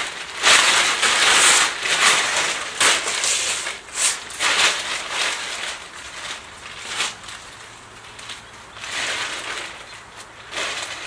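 Irregular crunching and rustling noises, loudest in the first few seconds and again about nine seconds in, with quieter stretches between.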